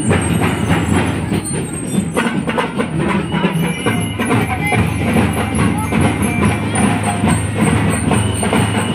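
Loud music driven by drums, with a dense, even beat of drum strokes over a heavy bass.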